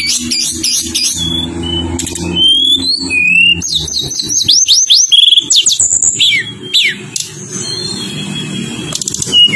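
Tledekan gunung songbird singing a fast, varied run of high whistled notes, rising and falling slides and trills, with a low steady hum underneath.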